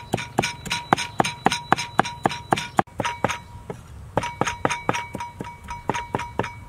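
Steel cleaver chopping garlic on a round wooden chopping block: sharp, even chops about three a second, with a faint metallic ring hanging over them.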